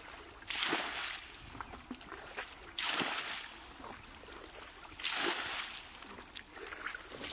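Muddy pond water being bailed out with a bucket and flung onto the grass bank: three splashes, about two seconds apart, with sloshing and dripping between them.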